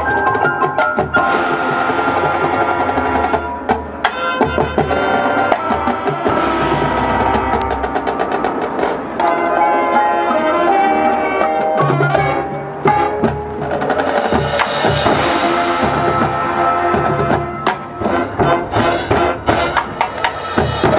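High school marching band playing its field show: sustained pitched chords over drums and percussion hits, with mallet percussion from the front ensemble.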